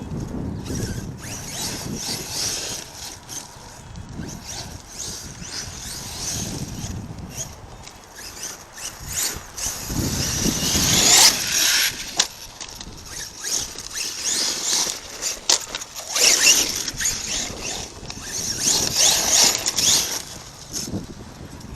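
ARRMA Kraton RC truck with an 8S brushless power system being driven hard: its motor whines up and down in repeated bursts of throttle, loudest about eleven seconds in.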